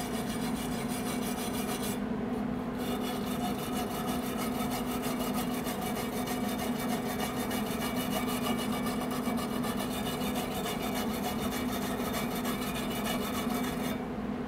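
Hand wire brush scrubbing back and forth over a fresh aluminum weld bead on a cast aluminum part, cleaning it between weld passes. The scratching pauses briefly about two seconds in and stops just before the end, over a steady low hum.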